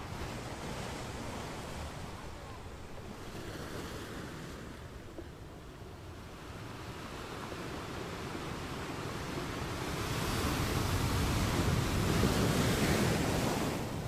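Sea waves washing with wind, a steady rush that builds from about halfway to its loudest near the end, then drops off.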